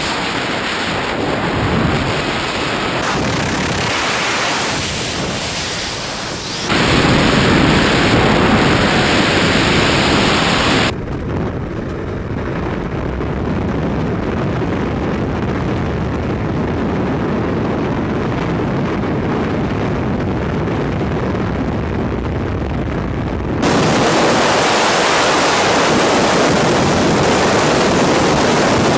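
Freefall wind in a tandem skydive, a loud steady rush buffeting the camera microphones. It changes abruptly several times as the footage cuts between cameras, and for a long stretch in the middle it sounds duller, with the hiss gone.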